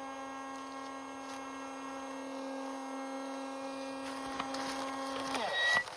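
Steady electric motor hum, plausibly the flywheel motors of a motorised Nerf blaster kept spun up. It stops about five and a half seconds in with a brief glide in pitch. A few light clicks come near the end.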